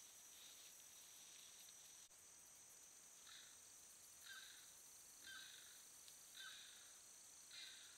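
Faint night insect chorus, a steady high-pitched buzz. From about three seconds in, a short animal call repeats about once a second, five times.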